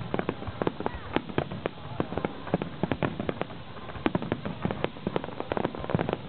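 Aerial fireworks shells bursting in quick, irregular succession: a dense run of sharp bangs and crackles, several a second.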